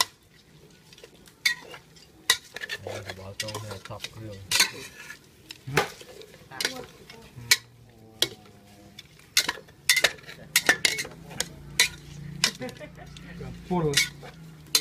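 A metal spatula scraping and knocking against the inside of a metal cooking pot while chunks of meat with lemongrass and lime leaves are stir-fried, in irregular strokes about once or twice a second.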